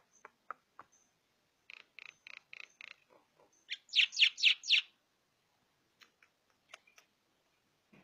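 Caged Javan myna (jalak kebo) calling: a run of five short notes, then about a second later a louder run of five, about four a second, with a few scattered clicks before and after.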